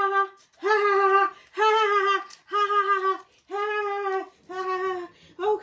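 A high voice making a sustained vocal sound over and over on one steady pitch, about six times, each under a second long with short breaks between.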